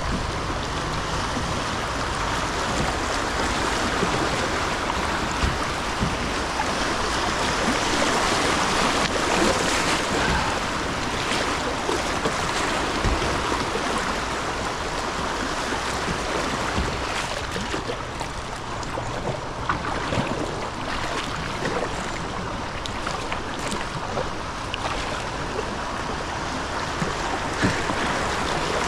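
River water rushing and splashing around a drifting kayak through a bumpy riffle, a steady wash with scattered small knocks.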